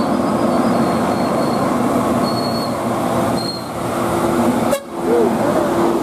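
Tour bus's telolet multi-tone horn sounding steady held notes over its engine and road noise as it passes close, broken off briefly near the end before the tone picks up again.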